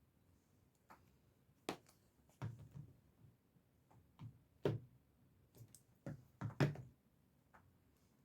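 Light taps and clicks from makeup brushes and palettes being handled, about a dozen short knocks scattered irregularly, the loudest near the middle and toward the end.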